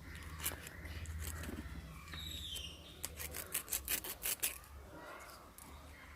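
Knife cutting through coconut-palm leaflets: a quick run of about eight crisp clicks in the middle, over a low steady hum.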